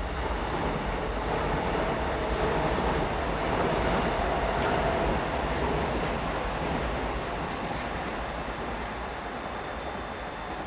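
JR Nambu Line electric commuter train rolling past on the tracks. Its running noise swells to a peak about four seconds in, then slowly fades as the train moves away.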